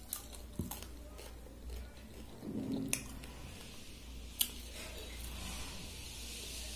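Chewing, then the wet squelch of fingers mashing and mixing water-soaked rice (panta bhaat) in a bowl, with a few sharp clicks.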